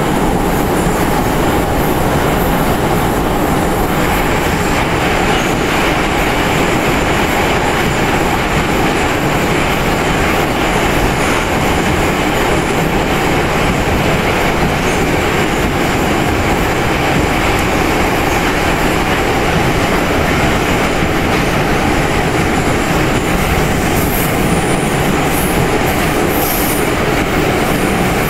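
Moscow Metro Ezh3 subway car running between stations, heard from inside the car: loud, steady noise of wheels and running gear on the rails, a little brighter from about four seconds in.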